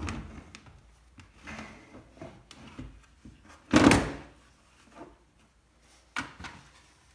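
A dishwasher counterweight block being slid back into place in the machine's frame: light scrapes and knocks, then one loud sliding thud about four seconds in, and a smaller knock near the end.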